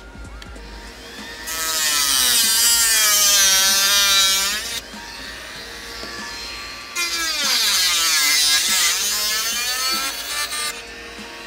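Handheld rotary tool with a cutoff wheel cutting clear polycarbonate (Lexan). It runs as two long, loud, high-pitched whines, about three seconds each, with a quieter gap between, and the pitch wavers as the wheel bites into the plastic.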